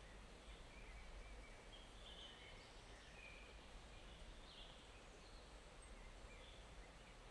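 Faint, steady flowing of a small forest stream, with a few brief, faint bird chirps scattered through it.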